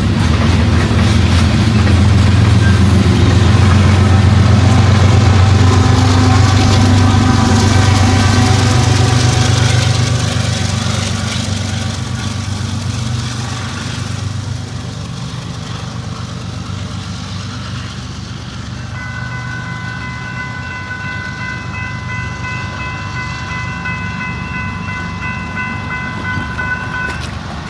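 Freight train of covered hopper grain cars rolling past with a loud low rumble, which fades away over the next few seconds as the train clears. Later a steady high ringing of several tones sets in and holds until near the end.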